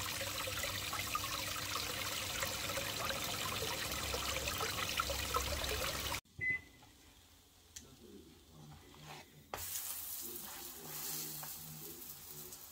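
Running, trickling water of a garden fish pond, steady for about six seconds, then cut off abruptly. After a short high beep, a flatbread in a frying pan sizzles faintly from about two-thirds of the way through.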